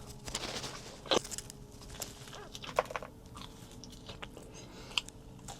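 A person biting and chewing a cookie close to the microphone, with a few sharp crunches among softer chewing. The cookie is hard, cold and a bit dry.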